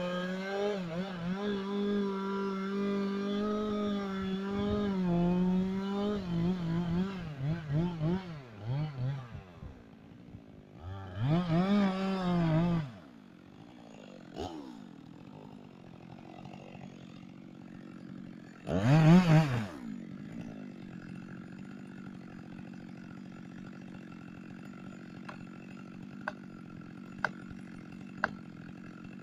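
Two-stroke chainsaw running fast and steady, then its engine speed wavering. Next come two short loud revs that rise and fall, about twelve and nineteen seconds in, and then it idles quietly. Three sharp ticks come near the end.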